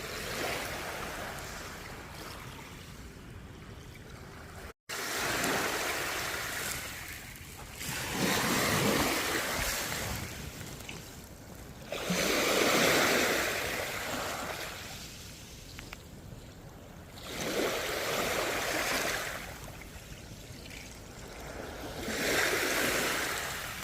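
Sea waves breaking and washing up the shore, each surge swelling and fading about every four to five seconds. The sound cuts out for an instant about five seconds in.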